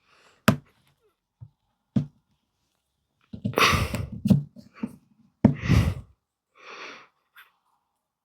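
Plastic Mathlink cubes being handled and snapped together: a sharp click about half a second in, another near two seconds, then two bursts of clattering and rattling in the middle.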